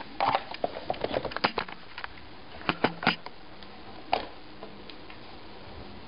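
Handling noise of a laptop and camera being moved and set down: a quick run of light clicks and knocks in the first second and a half, then a few sharper separate clicks around three and four seconds in.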